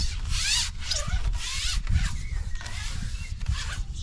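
Carbon fishing pole rubbing and scraping as it is slid by hand: a run of short scrapes, about two a second.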